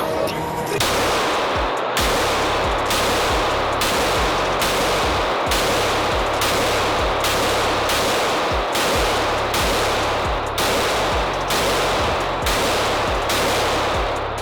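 Background music with a steady, even beat of about two strokes a second and a constant bass line.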